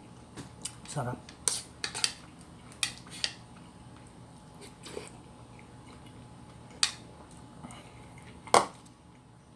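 A spoon clinking against a bowl while eating cereal: a series of sharp, irregular clinks, the loudest near the end.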